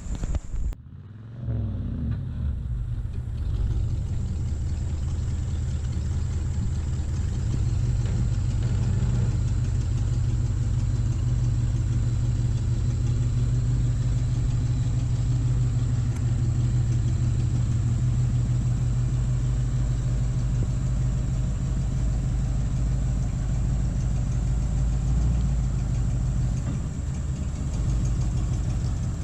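1978 Ford F100 pickup's engine revving up about a second in, then running steadily and hard under load as the two-wheel-drive truck takes a run up a slick grassy slope.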